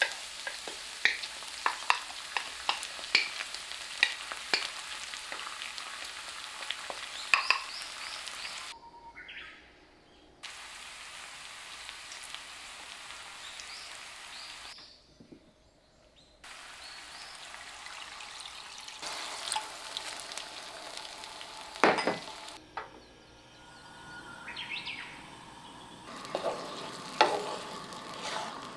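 Garlic, chilli and tomato puree sizzling in hot olive oil in a frying pan, with a steady hiss and many sharp crackling pops; the sound drops out briefly twice. Later a wooden spatula stirs the sauce, with a loud knock on the pan and a few clicks.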